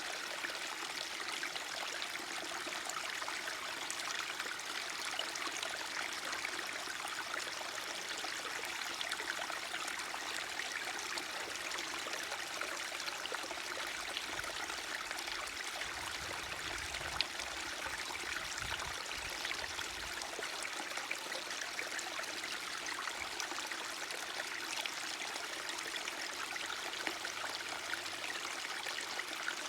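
Running water flowing steadily in a forest, with a faint low rumble for a few seconds in the middle.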